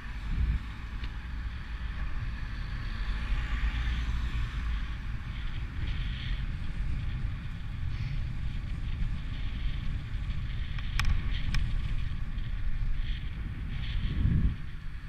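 Wind rumbling on the microphone of a camera moving along the road, over the steady hiss of cars passing on the wet road. Two sharp clicks come about eleven seconds in.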